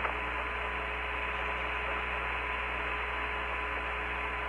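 Open air-to-ground radio channel from the Apollo 15 lunar surface communications between transmissions: a steady hiss with a low hum and a faint steady tone running under it.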